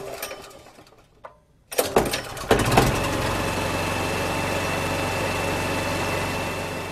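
An engine starting: a couple of clicks, then about two seconds in it catches with several sharp bangs and settles into a steady idle, which starts to fade near the end.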